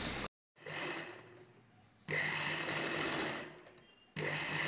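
Balson domestic sewing machine stitching lace trim onto a blouse neckline in short runs, each about a second or so long, with brief stops between them.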